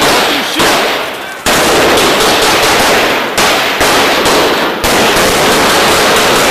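Loud, continuous automatic gunfire that eases off briefly a few times and comes back abruptly.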